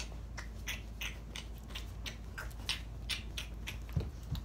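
Irregular small clicks and rustles from people moving about close to the microphone, with a soft thump near the end.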